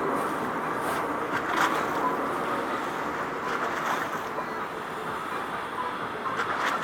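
Steady outdoor background noise, like distant traffic or wind, with a few faint clicks.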